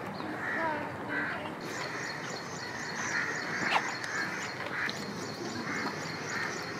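Birds calling: short calls scattered throughout, and from about a second and a half in a steady run of high chirps, several a second, over faint background voices.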